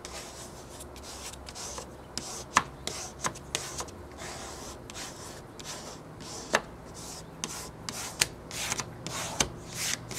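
A squeegee rubbing across a wet vinyl window decal in short, repeated strokes, pushing the soapy water solution out from underneath the vinyl. A few sharp clicks punctuate the strokes.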